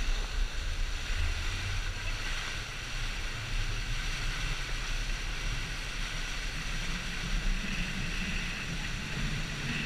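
Wind buffeting an action camera's microphone and water rushing and spraying past an inflatable banana boat towed at speed, with a steady low drone underneath.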